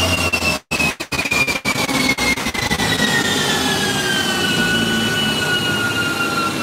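Perodua Myvi 1.5 with a bolt-on turbo running on a chassis dyno during a power run: a loud steady rush with a high whine that falls steadily in pitch. The sound cuts out briefly several times about a second in.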